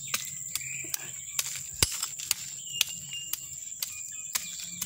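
Small garden hoe scraping and knocking in loose dry soil and leaf litter, a string of sharp irregular clicks and taps, with one louder knock about two seconds in. A steady high hum runs underneath.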